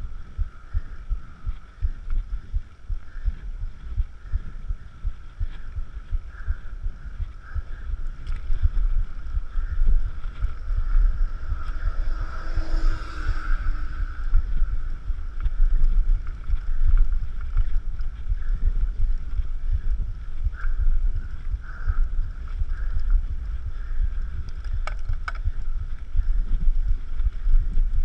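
A rider's heartbeat picked up through a chest-mounted GoPro, a fast low pulsing, mixed with wind noise on the microphone. There is a brief rushing noise about halfway through.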